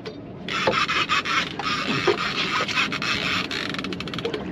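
Fishing reel's drag paying out line in a fast, steady clicking buzz as a hooked striped bass pulls against the bent rod. It starts about half a second in.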